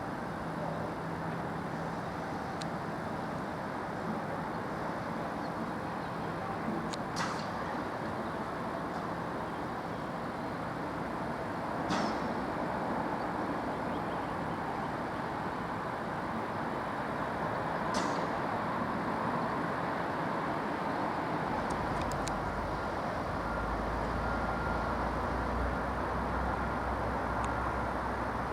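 Steady vehicle noise with a few sharp clicks, and a deep low rumble that comes in about three quarters of the way through.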